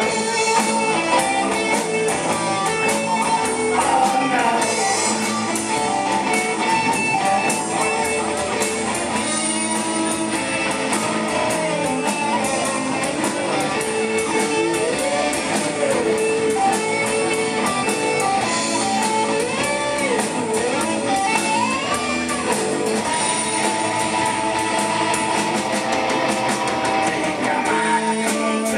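Live rock band playing an instrumental passage: electric guitars over bass and a steady drum beat, with the lead guitar bending notes through the middle of the passage.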